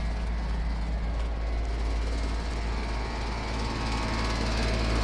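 New air conditioner condenser units running, their ECM condenser fan motors and compressors giving a steady mechanical hum over a low rumble. The hum swells slightly about four seconds in.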